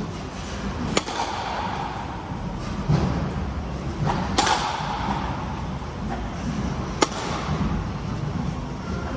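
Slow-moving train over a steady low rumble, with a sharp knock from the wheels every three seconds or so, each followed by a short hiss.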